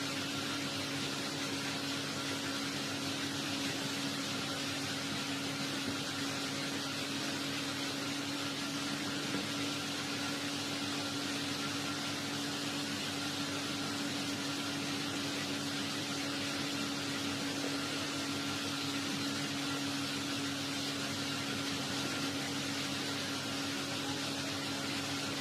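Steady background hiss with a constant low electrical-sounding hum, unchanging throughout, with no voice or other events.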